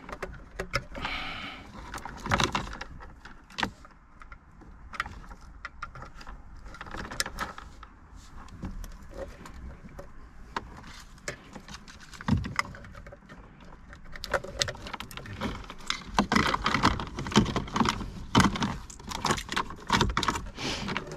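Plastic wiring-harness plugs and cables clicking and rattling as connectors are pushed into the back of a car radio head unit and the wires are handled. The clatter grows busier and louder in the last few seconds.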